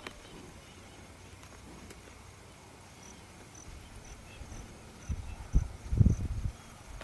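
Faint insect chirping, short high pips about twice a second, over a quiet rural background. From about five seconds in, wind buffets the microphone in loud, irregular low rumbles.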